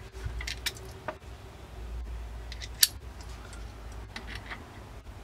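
Scattered small metallic clicks and ticks of a screwdriver seating in and turning the shell carrier pivot screw in a Marlin 1894 lever-action rifle, with one sharper click a little before three seconds in. A low steady hum runs underneath.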